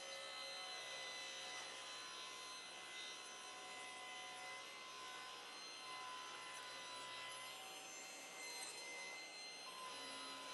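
Table saw with a glue-line rip blade running steadily, heard faintly, as a clamped board on a sled is fed through the blade to trim a straight, jointed edge.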